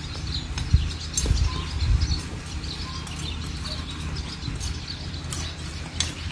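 Small hand hoes chopping and scraping into dry, stony garden soil, hilling earth around potato plants: irregular short knocks and scrapes. Small birds chirp in the background.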